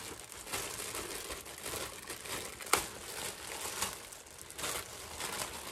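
Packaging crinkling and rustling as a skirt is handled and pulled out, with one sharp click about two and a half seconds in.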